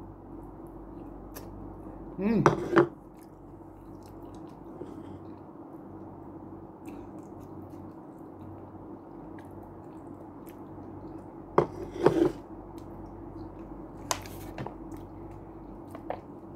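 A person eating spaghetti, with small mouth and chewing sounds and a couple of brief hummed vocal sounds, about two seconds in and again about twelve seconds in, over a steady low hum.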